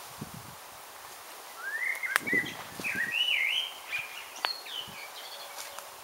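A songbird singing one warbling phrase of rising and falling notes, starting a little over a second and a half in and lasting about three seconds. Two sharp clicks fall within it.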